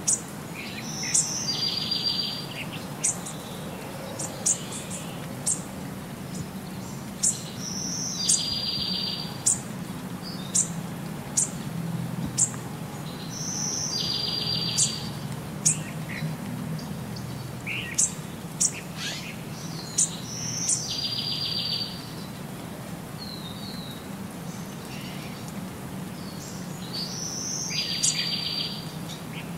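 Birdsong laid over the pictures as a loop: the same phrase of sharp, high chirps followed by a short rapid trill repeats about every seven seconds, over a steady low hum.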